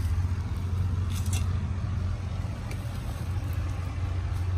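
A steady low mechanical hum, with a few light clicks a little over a second in.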